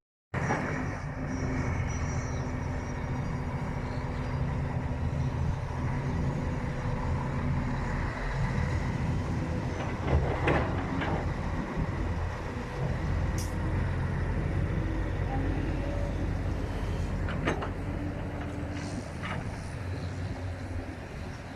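Heavy diesel machinery running steadily as an excavator loads a dump truck, with a few knocks about ten and seventeen seconds in.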